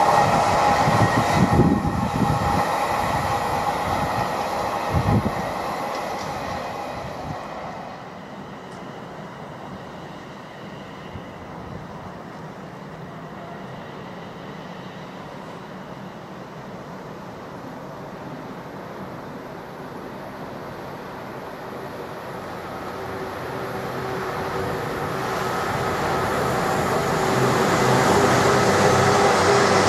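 Freight train of covered box wagons rolling past and fading away, with a few heavy thumps in the first seconds. After a lull of low rumble, a diesel locomotive hauling a container train approaches, its engine hum and wheel noise growing steadily louder through the last third.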